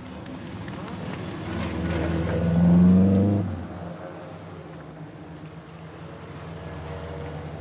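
Turbocharged flat-four engine of a Subaru Impreza WRX STI at full throttle, getting louder and peaking about three seconds in. The note then cuts off sharply as the throttle is lifted, and a quieter engine sound carries on.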